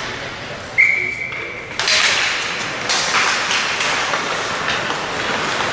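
A single steady high whistle blast, about a second long, cutting in sharply over the arena's crowd chatter; after it the crowd and rink noise grow louder, with scattered knocks.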